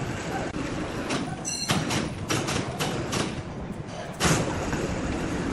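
Sawmill machinery and timber knocking: a run of sharp knocks and clatters, quickest between about two and three seconds in, over a steady mechanical background, with a short high metallic ring about one and a half seconds in.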